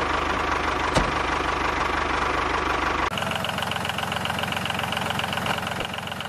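Steady engine-like running of mini model tractors with an even pulsing beat, a single click about a second in, and an abrupt change to a thinner, higher whine about three seconds in.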